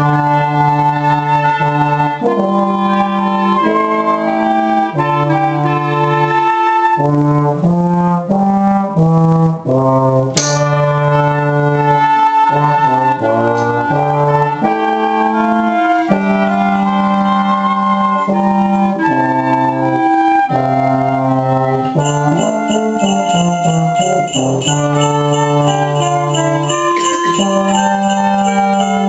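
A small amateur ensemble of baritone horn, oboe and other instruments playing a slow Christmas tune in sustained, changing chords. About 22 seconds in, percussion joins with a steady, evenly repeating rhythm.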